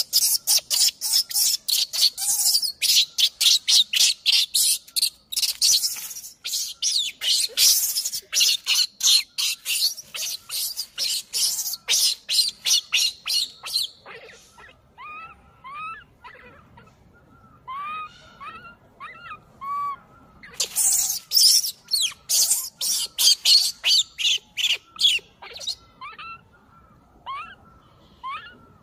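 An infant macaque screaming in a rapid string of shrill cries, several a second, then dropping to short rising squeaks before a second burst of screaming. It is a weaning tantrum: the baby's distress at being pushed off its mother's nipple.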